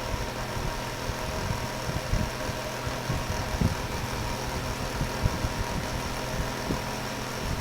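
Climate Keeper two-speed twin window fan running on high: a steady motor hum with a high whine and irregular low knocks. The left-hand fan makes what is called an insane noise.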